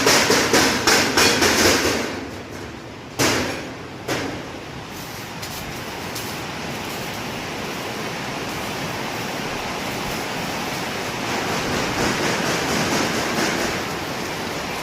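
Rapid strikes in a steel furniture workshop, about four a second, stop about two seconds in. Two single strikes follow, then a steady workshop hiss.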